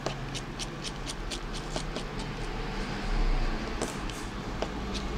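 Rapid light clicking, about four to five clicks a second, as a precision screwdriver turns out the small back-frame screws of a Samsung Galaxy S4. The clicking thins to a few scattered clicks about halfway through, and a brief low rumble rises about three seconds in, over a steady low hum.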